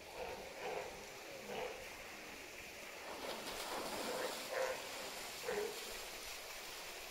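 Water sloshing and running off a polar bear as it climbs out of its pool, with a faint murmur of distant voices.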